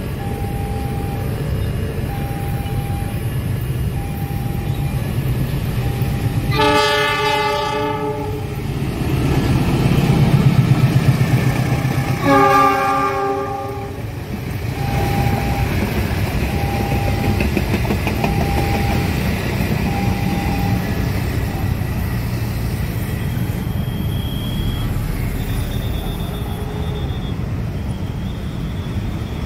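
Diesel-hauled passenger train passing a level crossing. The locomotive sounds its horn in two long blasts a few seconds apart, with the low rumble of the engine swelling between them, then the coaches clatter over the rails. A level-crossing warning alarm beeps about once a second through the first two-thirds.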